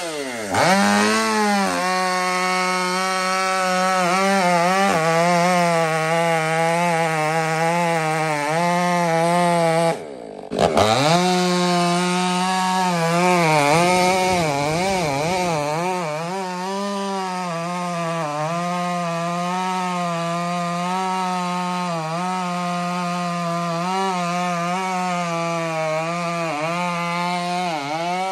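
Stihl MS500i fuel-injected two-stroke chainsaw with a 32-inch bar running at full throttle while cutting through a large log, its engine pitch wavering as the chain loads down in the wood and picks back up. The sound breaks off briefly about ten seconds in, then the saw comes back at full revs.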